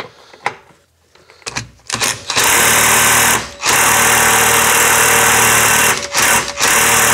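Impact wrench hammering on a seized lower control arm bolt in repeated trigger bursts: a short run about two seconds in, a longer run of a couple of seconds, then shorter bursts near the end. The bolt is not breaking loose.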